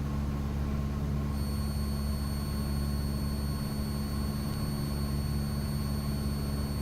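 Cessna 172's piston engine and propeller droning steadily in the cockpit in flight, with a thin high-pitched whine coming in about a second in.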